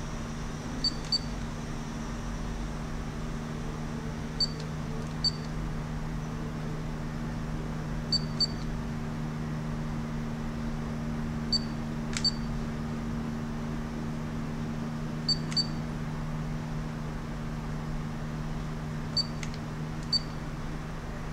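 Radio-control car transmitter beeping as its button is pressed: short high beeps in pairs, about every four seconds, over a steady low hum.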